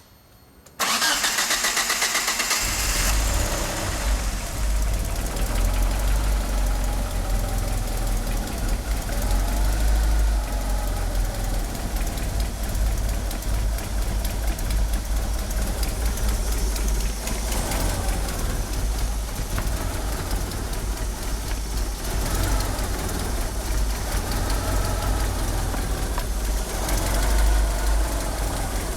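Mitsubishi Eclipse GSX's turbocharged 4G63 inline-four cranked by the starter for about two seconds, catching, and settling into a rough, uneven idle. The roughness goes with its oversized 850cc injectors, and the engine won't rev up.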